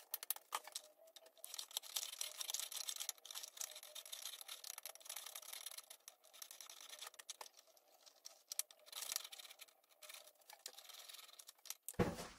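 Zucchini being shredded into spaghetti-like strands on a hand-held vegetable grater: soft, uneven scraping with many small clicks.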